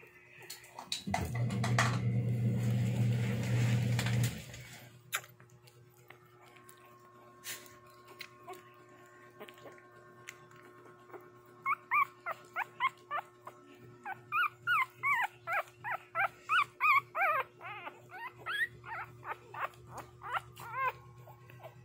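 Two-week-old shih tzu–aspin puppies squealing: a rapid run of short, high-pitched whimpers, two to three a second, through the second half, as a puppy is picked up by hand. Before that, a low steady hum for the first few seconds.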